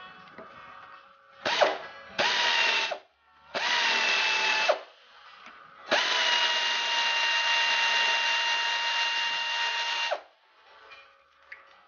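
Power drill running in four bursts: a short blip, two runs of about a second each, then one steady run of about four seconds.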